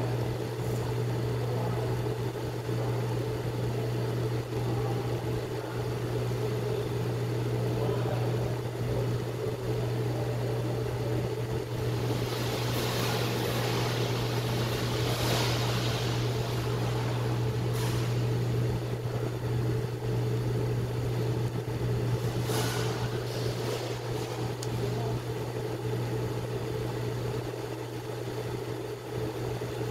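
HAUSCOOK FCH-D220 instant-ramen cooker running with a steady low hum while the ramen boils in its pot. A hiss swells about twelve seconds in and fades by sixteen, and a brief hiss comes about twenty-two seconds in.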